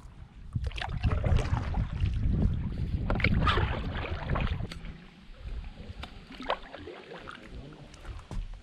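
Kayak paddle dipping and splashing, with water dripping, over a low wind rumble on the microphone. The rumble drops away about halfway through.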